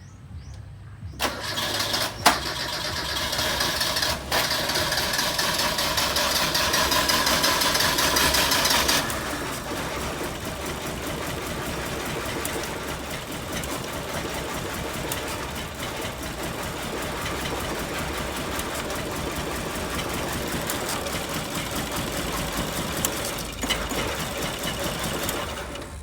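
Car engine starting about a second in, running loud and fast for several seconds, then settling to a steadier, lower running before it stops near the end.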